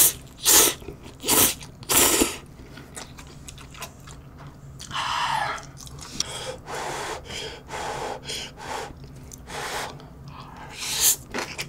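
Ramen noodles slurped in several loud quick pulls, then quieter chewing with wet mouth sounds, and more slurping near the end.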